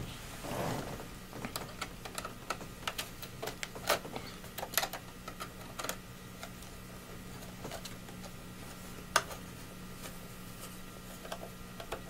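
Small irregular clicks and ticks of a screwdriver turning the screws of an iMac's memory-bay cover as they are tightened, with a sharper click about nine seconds in. A faint steady low hum lies underneath.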